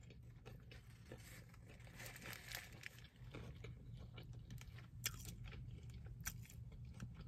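Faint chewing of a mouthful of chicken burger, with soft crunching and small scattered clicks of the mouth working.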